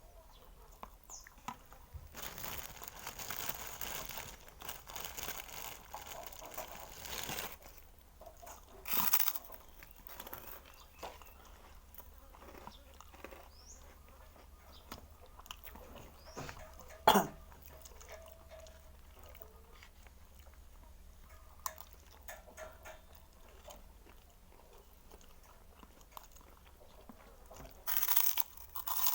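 Close-up eating sounds: crunchy biting and chewing of food, densest in a stretch early on, with scattered small clicks. About two-thirds of the way through there is one short, loud, sharp sound, and near the end a burst of louder rustling.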